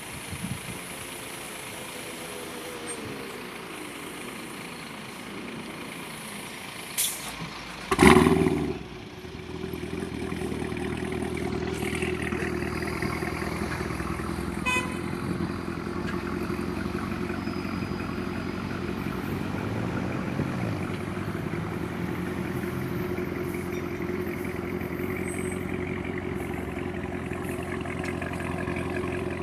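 Equus Throwback S's supercharged V8 starting about eight seconds in with a sharp loud flare, then settling into a steady idle.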